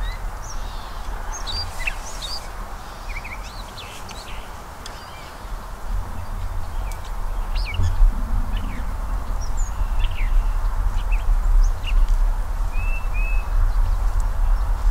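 Small songbirds chirping and whistling in short scattered calls, over a steady low rumble that grows louder from about six seconds in.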